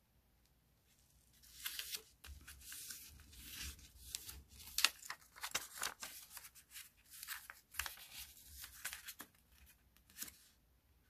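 Sheet of origami paper rustling and crackling as it is folded in half and pressed into a crease by hand, in irregular bursts with sharp crinkles from about two seconds in until near the end.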